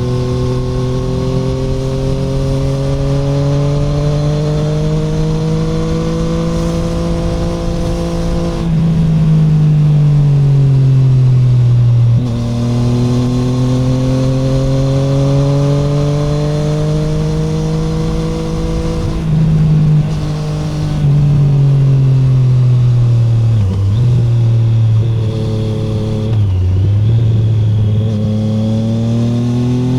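Triumph Street Triple 765R's three-cylinder engine through an SC Project SC1-R titanium exhaust with no dB killer, heard from on the bike. The revs climb in long, slow pulls, fall back about nine seconds in and again just before twenty seconds, and drop briefly twice near the end before climbing again.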